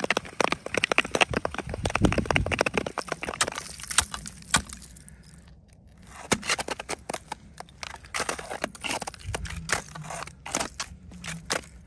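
Footsteps crunching and crackling on frozen lake ice and crusty snow-ice, an irregular run of sharp crisp steps with a few heavier thuds. They pause briefly about halfway through.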